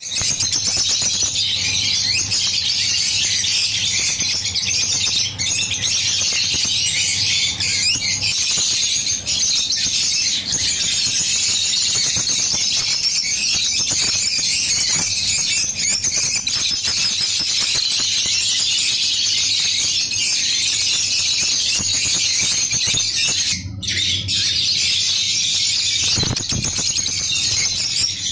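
A flock of rosy-faced lovebirds chattering in an aviary cage: a dense, shrill, unbroken chorus of squeaks and chirps, easing off briefly about three-quarters of the way through.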